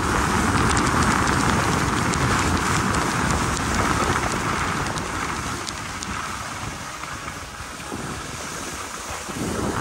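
Wind rushing over the microphone and ski edges hissing on packed, groomed snow while skiing downhill. The noise eases off in the second half and builds again just before the end.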